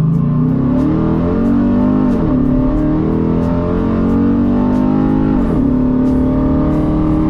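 Dodge Challenger engine accelerating hard from inside the cabin. The pitch climbs, drops sharply at an upshift about two seconds in, climbs again, and drops at another upshift about five and a half seconds in. Background music with a steady beat plays underneath.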